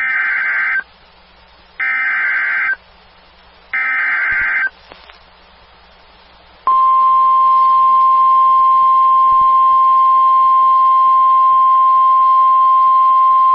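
Emergency Alert System SAME header: three short bursts of digital data tones, each just under a second and about two seconds apart. About seven seconds in, a single steady 1050 Hz NOAA Weather Radio warning alarm tone starts and holds, signalling an incoming weather warning.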